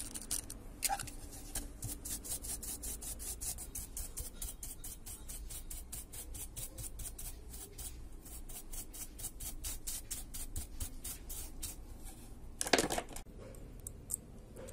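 Precision screwdriver working the tiny screws of a phone's circuit board: a fast, even run of light scratchy clicks, about five a second, with one louder knock near the end.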